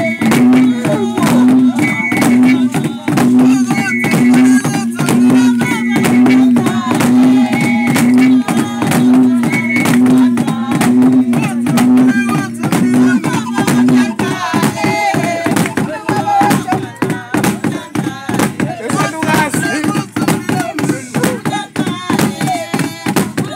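Ceremonial dance music: a fast, steady drumbeat with a pulsing low note about twice a second, and voices singing. About fourteen seconds in the pulsing note drops out and the beat goes on less regularly.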